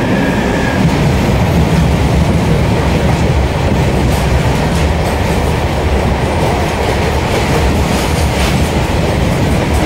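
Steady, loud rumble and wheel clatter of a moving passenger train heard at its open doorway, mixed with the rush of a goods train of open freight wagons passing close by on the next track.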